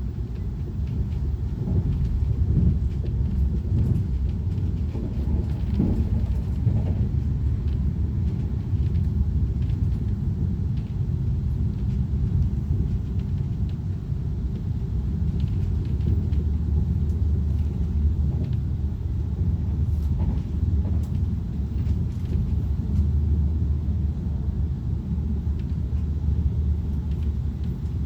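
Steady low rumble of an Italo passenger train running along the line, heard from inside the carriage, with faint light clicks and rattles over it.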